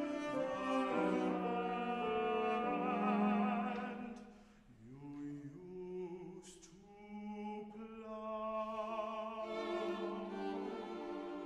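Tenor singing with vibrato over a string quartet of violins, viola and cello. The music drops quiet about four seconds in, then swells again from about eight seconds.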